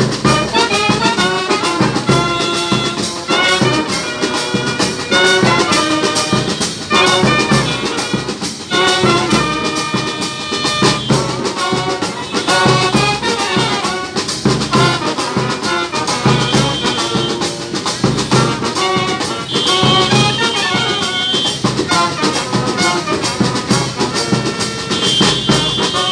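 Uniformed brass band playing a tune: trumpets and large bass horns carry the melody over a steady beat from a bass drum and snare drum.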